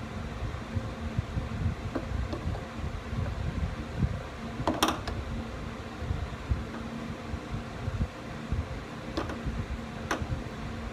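Steady hum of a fan-like machine, with scattered light clicks and taps of small parts being handled and one sharper click about five seconds in.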